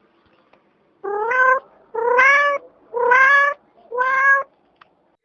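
Cat meowing four times, about a second apart, each meow a short call that rises slightly in pitch.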